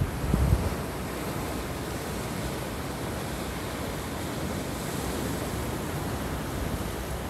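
Sea surf breaking on rocks and washing over a pebble shore, a steady rushing wash. Wind buffets the microphone in gusts for the first half-second.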